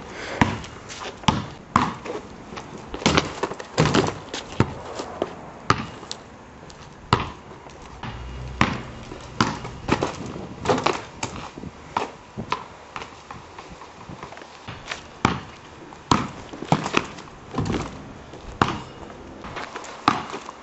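A basketball bouncing on a concrete driveway as it is dribbled and shot: a string of sharp, irregularly spaced bounces, roughly one every half second to a second and a half.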